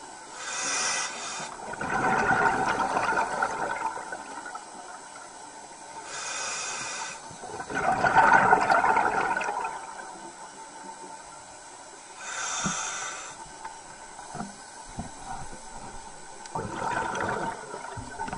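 Scuba diver breathing through a regulator: a short hissing inhale followed by a longer, louder rush of exhaled bubbles, three breaths about six seconds apart.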